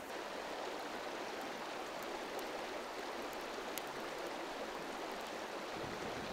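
Steady rushing of a river flowing beside a gravel bar, an even wash of water with a couple of faint ticks. Near the end a low rush starts as breath is blown onto the smouldering campfire kindling.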